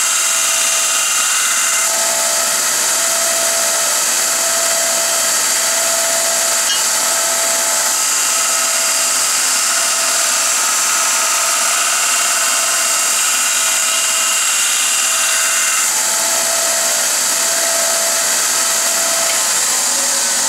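A 2-by-48-inch Baldor belt sander/grinder running, its abrasive belt grinding a soft-steel lathe threading tool against the flat platen: a steady, loud, hissing grind with a faint hum that comes and goes.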